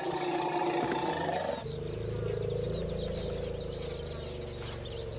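African elephants calling: a pitched call with several harmonics in the first second and a half, then a long, low, buzzing rumble lasting about three and a half seconds. Small birds chirp faintly over it.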